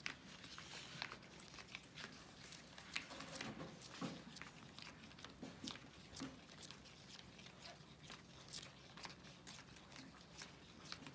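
Plastic spoons stirring and scraping sticky glue-and-detergent slime in plastic trays: faint, irregular wet clicks and squelches.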